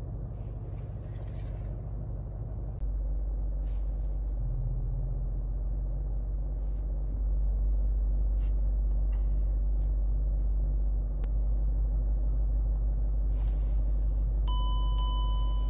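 Range Rover L322's 3.6-litre TDV8 diesel V8 idling at about 750 rpm, heard from inside the cabin as a steady low drone that grows a little louder a few seconds in. There are a few light clicks along the way, and a high electronic beep of about a second near the end.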